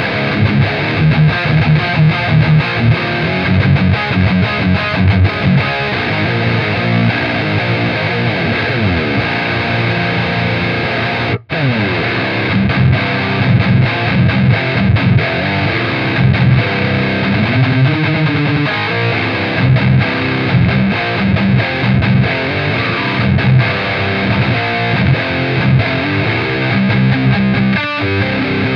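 Electric guitar with heavy, high-gain distortion riffing through a MESA/Boogie 90s Dual Rectifier tube amp and Rectifier cabinet, in a metal rhythm tone. The playing cuts off completely for an instant about eleven seconds in, then starts again.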